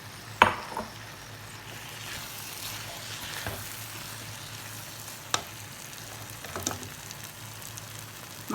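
Chicken pieces and fried coconut frying in a pan of spiced oil-and-vinegar masala: a steady sizzle with stirring. A sharp knock about half a second in is the loudest sound, with two lighter knocks later.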